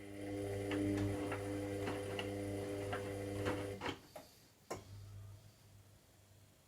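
Washing machine motor humming steadily for about four seconds during a synthetics warm-wash cycle, with light ticks over it, then stopping with a click; another click follows about a second later and a faint low hum remains.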